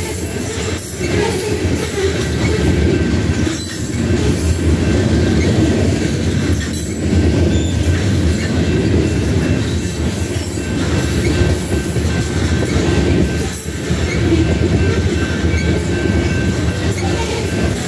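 Freight train of covered hopper cars rolling past at close range: a steady, heavy rumble of steel wheels on rail that swells and dips every few seconds as cars go by, with faint thin high squeals above it.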